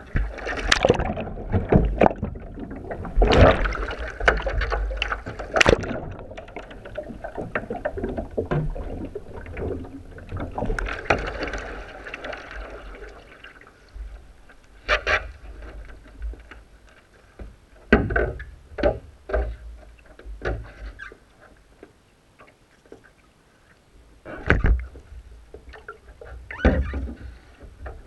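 Water splashing and sloshing around a sea kayak as the paddler capsizes and rolls back upright in a butterfly roll, a busy stretch of splashes and hits. It is followed by a few separate paddle splashes spaced several seconds apart.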